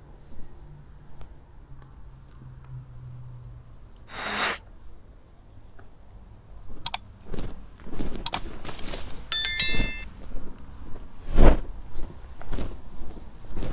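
Street sounds: a low steady hum, then a short hiss about four seconds in. After that come irregular clicks and knocks, a brief metallic ring like a bell a little past halfway, and a heavier knock near the end.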